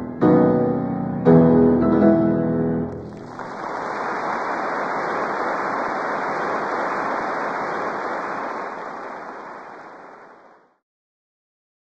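Background music with piano and guitar chords, ending about three seconds in. A steady rushing hiss follows, fades out, and stops near the end.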